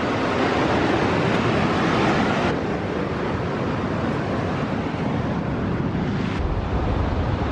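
Loud, steady rushing roar of water spilling over the North Fork Dam's man-made waterfall. It turns duller about two and a half seconds in and takes on a deep low rumble near the end.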